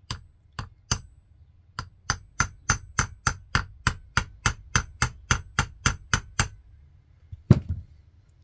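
Small hammer tapping a punch on the copper shank of a barometer needle's hub, flaring it to tighten the needle. A few spaced taps lead into a steady run of light taps, about three a second, with a faint high ring over them, then one last knock near the end.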